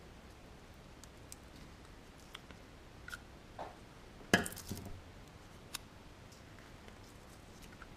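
Small plastic electrical parts and wires being handled on a table, making scattered light clicks and ticks. About four seconds in comes one sharp, much louder clack, then a few softer knocks, as a pair of scissors is set down on the table.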